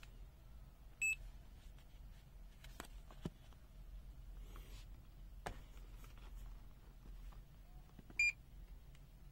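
Two short, high electronic beeps from digital test meters, one about a second in and a slightly louder one near the end, with a few faint clicks of handling in between.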